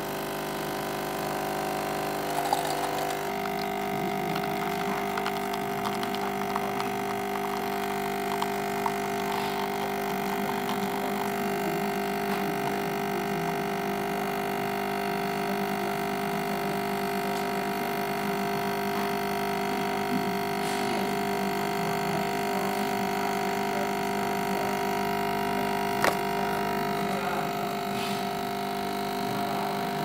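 Coffee machine running with a steady mechanical hum and buzz made of several held tones, with a couple of sharp clicks, one a few seconds in and one near the end.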